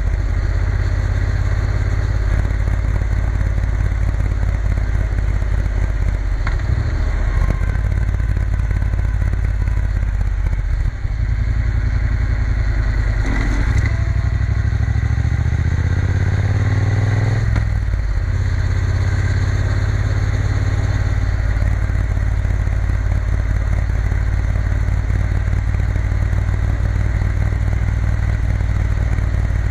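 Triumph Bonneville T120's parallel-twin engine running steadily while the bike is ridden along a country lane, heard from the rider's seat. About halfway through, the engine note climbs for a few seconds, then drops back.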